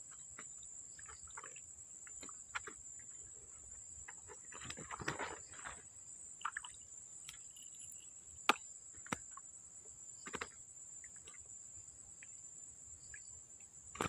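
Insects, crickets by their sound, chirring steadily at a high pitch. Scattered sharp clicks and a short noisy rustle about five seconds in break through it, with the loudest click a little past the middle.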